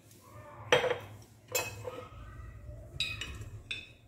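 A teaspoon clinking against dishes as spices are measured out for a marinade: about four short clinks with a little ringing.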